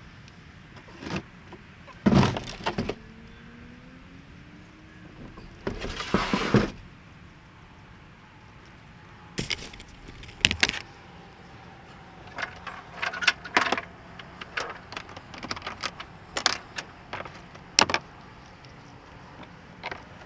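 A plastic fishing kayak and its gear knock, scrape and rattle as the kayak is lifted and loaded into a pickup truck bed. The sound is scattered knocks and clatters, with two longer scraping rattles in the first seven seconds.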